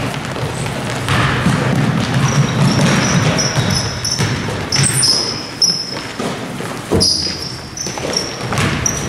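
Basketball game play on a hardwood gym floor: sneakers squeaking in many short, high chirps while a basketball bounces and feet pound the court. A sharp knock stands out about seven seconds in.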